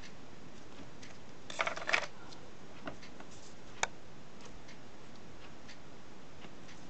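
Light handling noises from a flux syringe and a small circuit board on a work mat: a short clatter of small clicks about one and a half seconds in and a single sharp click near the middle, over a steady faint hiss.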